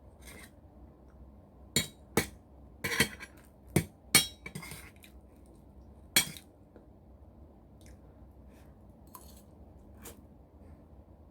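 Cutlery clinking against a plate or bowl during a meal: a handful of sharp separate clinks bunched in the first half, then two more spaced out.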